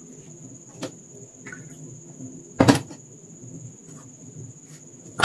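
A few knocks of kitchen things being handled on a countertop: a light one about a second in, a loud one about two and a half seconds in, and another near the end. A steady faint high-pitched tone runs underneath.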